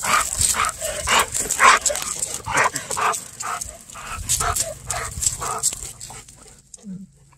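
Golden retriever barking and yipping excitedly in short, quick calls, about two a second, at the sight of another dog. The calls thin out and stop about six seconds in.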